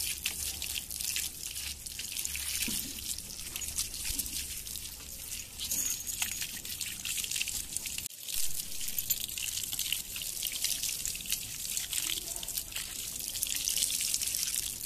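Water from a garden hose spraying onto a wet dog's coat and splattering on the concrete floor: a steady hiss with a patter of droplets.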